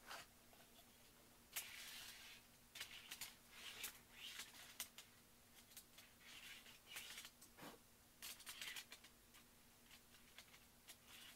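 Faint scattered clicks and light rustling of fingers handling small plastic N scale model train cars on the track.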